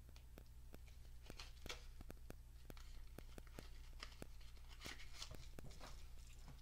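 Quiet handling sounds of small parts and packaging: a few soft rustling, tearing-like scrapes among a run of light ticks, about two to three a second, over a low steady hum.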